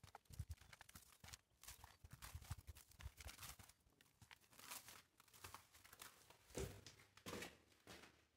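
Faint footsteps scuffing along a path, with light rustling.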